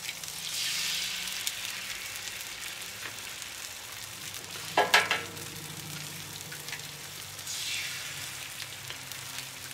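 Eggs sizzling as they fry in grease on a hot Royal Gourmet 36-inch gas flat-top griddle. The hiss swells as an egg lands on the hot steel, just after the start and again near the end. A brief sharp knock comes about five seconds in.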